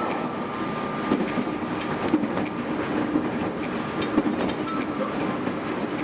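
Train running on the rails: a steady rumble with a faint whine and a few sharp clicks from the wheels.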